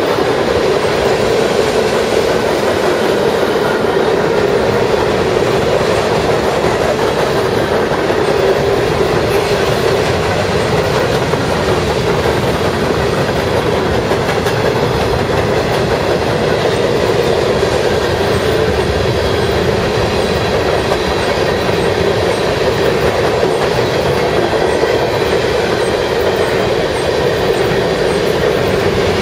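A mixed freight train's tank cars and covered hoppers rumble past at speed: the steady noise of steel wheels rolling on rail, even and unbroken.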